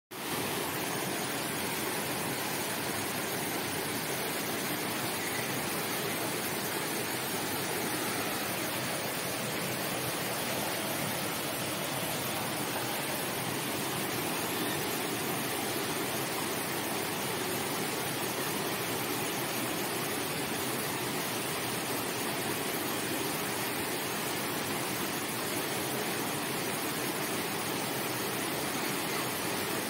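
Water pouring steadily into a pool, a constant rushing like a small waterfall.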